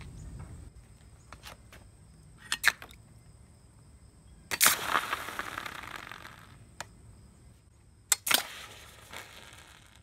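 Hot zinc ingots tipped out of a metal muffin pan into a tub of cool water to finish cooling: a few light metal clicks, then two loud clatter-and-splash drops, about four seconds apart, each trailing off as a fading rush of noise.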